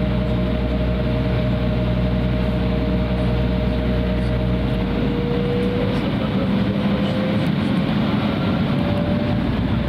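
Cabin noise of an Embraer 175 taxiing: the steady hum of its GE CF34 turbofans at low thrust with air-conditioning hiss, and a thin engine whine that drifts slightly higher in pitch. A low drone underneath fades about halfway through.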